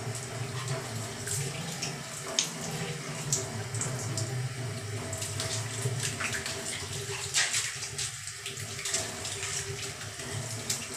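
Shower water running steadily from the tap, splashing over a small wet dog as it is washed by hand, with irregular sharper splashes throughout.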